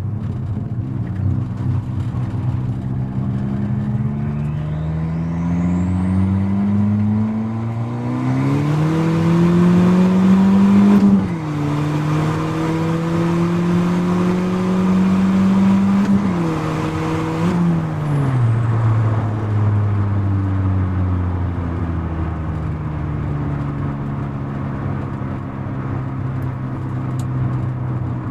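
Turbocharged four-cylinder of a 1989 Ford Probe GT, heard from inside the cabin, accelerating hard through the gears. The engine pitch climbs for about ten seconds, drops sharply at an upshift, and climbs again. It drops twice more in quick succession, then holds and slowly eases off. A loud rushing noise rides over the hardest pulls.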